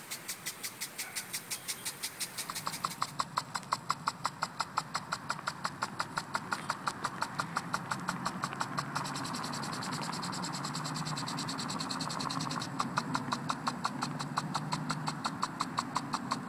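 Orbit impulse sprinkler with an all-metal head running: its spring-loaded arm knocks in and out of the water jet in an even, rapid clicking, several strikes a second, over the hiss of the spray. About three seconds in, the clicks change to a clearer, lower knock.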